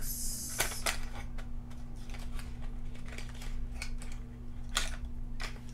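A small product box being opened by hand and the mascara tube taken out: a short scraping hiss at the start, then scattered light clicks and rustles of packaging.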